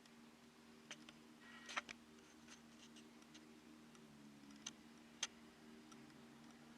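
Near silence: room tone with a faint steady hum and a few brief faint clicks, the clearest near two seconds in and about five seconds in.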